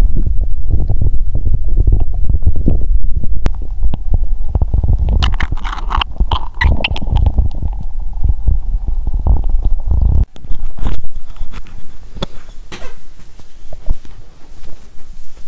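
Stomach rumbling and gurgling, picked up close against the belly: an irregular low churning, with higher squeaky gurgles in the middle. About ten seconds in, the rumble cuts off suddenly and gives way to rustling and handling noise.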